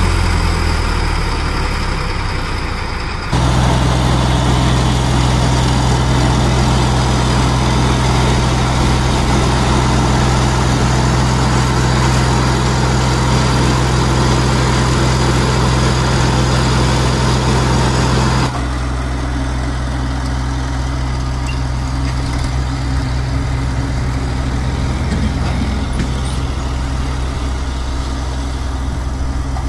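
Diesel tractor engines running steadily in three edited stretches. First the HMT 4522 tractor's diesel engine runs with the loaded mud trolley hitched. A few seconds in, a louder, fuller stretch of the same tractor's engine follows. About two-thirds through it gives way to a quieter tractor engine running while a tipping trolley dumps its load of mud.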